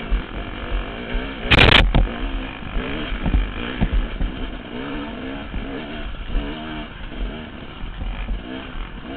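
KTM dirt bike engine revving up and down over and over as it is ridden, picked up by a helmet-mounted camera. A loud burst of noise comes about a second and a half in.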